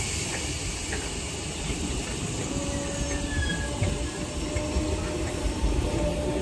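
Merseyrail 'PEP'-type third-rail electric multiple unit pulling away from the platform: a low rumble of wheels on track, with a faint steady motor whine setting in about halfway through.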